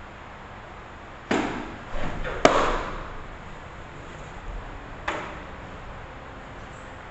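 Sharp smacks of a fastpitch softball hitting a leather catcher's mitt. A cluster of hits comes between about one and two and a half seconds in, the last of them the loudest, and one more follows near five seconds. Each rings briefly in the enclosed batting cage.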